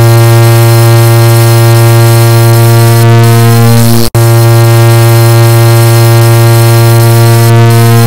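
A car horn sound stacked over itself many times into one loud, steady, distorted low tone with a harsh stack of overtones. It cuts out for a split second about four seconds in and then starts again just as before.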